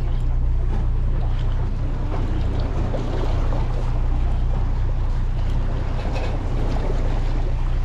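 A boat's engine running with a steady low hum, under the noise of wind and sea wash.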